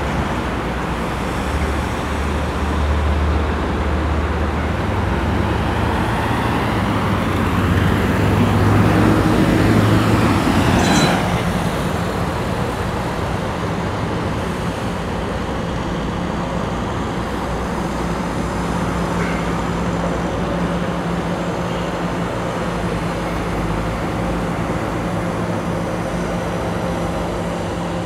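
Steady city traffic noise. A heavy vehicle's engine grows louder over the first ten seconds and fades about eleven seconds in, with a brief high-pitched squeal as it goes.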